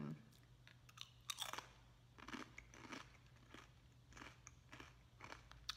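Faint, irregular crisp crunches of a person chewing a brown rice chip.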